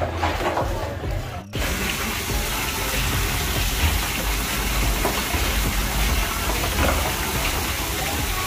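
Water running steadily from a tap into a sink, starting abruptly about a second and a half in.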